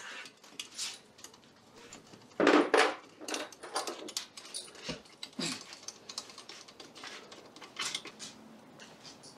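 Hands working an aluminium mounting rail on a solar panel frame: scattered light clicks and small metal rattles, with a louder rattle about two and a half seconds in.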